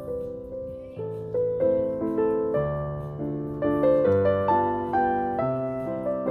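Background piano music: a gentle melody over chords, with new notes struck about every half second.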